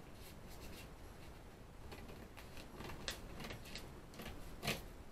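Scissors snipping through a sheet of 3D puff heat-transfer vinyl on its plastic carrier: a series of short, crisp cuts, a few at first and more from about two seconds in, the loudest near the end.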